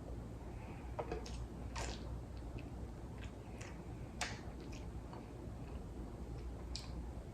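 Sushi being eaten: a handful of scattered light clicks and taps, with some faint chewing, over a steady low hum.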